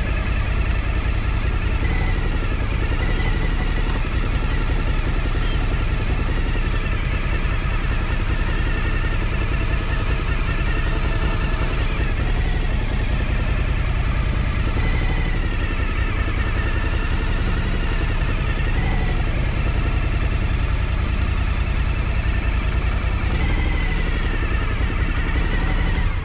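Motorcycle engine running steadily as the bike rides along at low speed.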